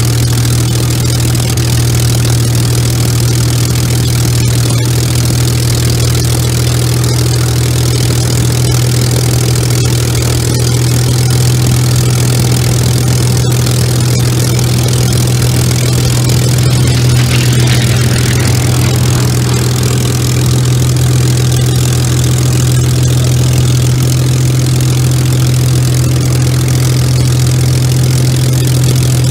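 Rolls-Royce Merlin V12 engine of a two-seat Messerschmitt Bf 109 G-12 idling on the ground, a steady low-pitched running that holds even throughout.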